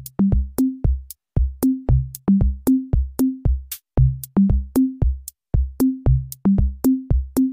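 Background music: an electronic track with a drum-machine beat and a bouncy bass line of short notes stepping up and down in pitch.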